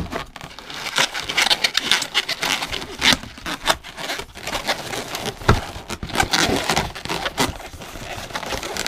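Inflated latex modelling balloons squeaking and rubbing against each other and against the hands as they are twisted and wrapped together, a busy run of short squeaks and scrapes.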